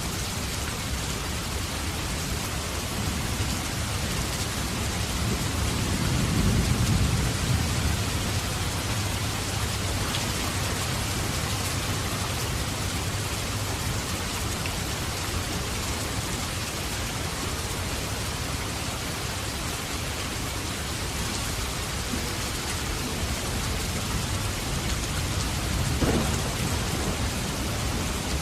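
Heavy, steady rain with thunder: a low rumble swells and fades about a quarter of the way in, and a short sharp crack of thunder comes near the end.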